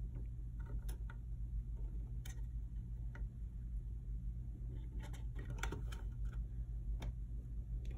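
Scattered light clicks and scratches of a gray squirrel's claws on the wooden boards of a cabinet as it climbs, irregular and most frequent in the last few seconds, over a steady low hum.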